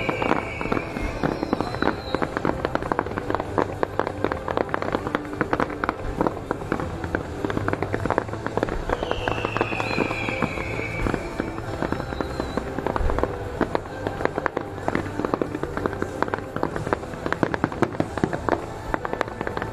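Fireworks display: a dense, continuous crackle of many rapid pops from crackling stars and fountains, with a falling whistle at the very start and another about nine seconds in.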